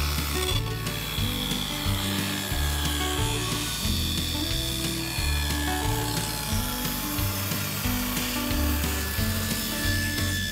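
Background music with a walking bass line, over a table saw ripping a board lengthwise into thin slats.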